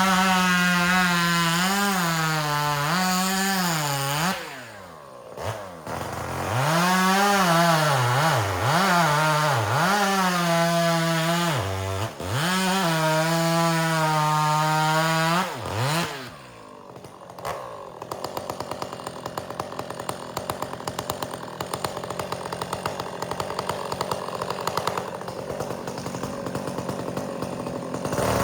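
Two-stroke chainsaw bucking firewood at full throttle, its pitch sagging and recovering again and again as the chain bogs in the cut. It drops off the throttle twice, then idles with a steady rapid putter for the last ten seconds before revving up again at the very end.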